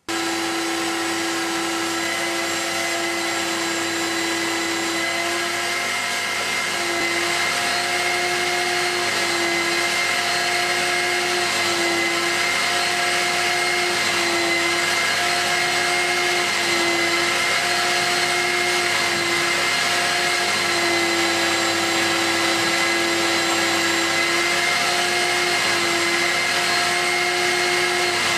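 Vacuum cleaner motor running steadily, starting abruptly, with a strong hum that wavers slightly in pitch and a higher whine above it.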